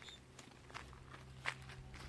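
A few faint, irregular crunching footsteps on garden soil, the loudest about one and a half seconds in.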